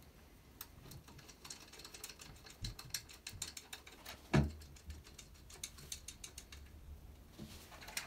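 Small Allen-head bolts with washers being threaded by hand into an exercise bike's front stabiliser: a run of light, irregular metallic clicks and ticks, with one louder knock about four seconds in.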